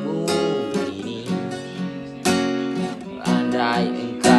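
Acoustic guitar strummed in chords, a fresh strum about every second with the chords ringing on between them.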